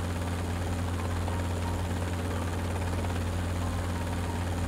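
Helicopter in flight: a steady, low drone of rotors and engines that keeps an even level throughout.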